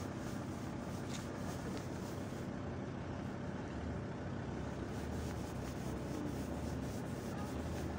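SA139 diesel railbus idling while it stands, a steady low hum.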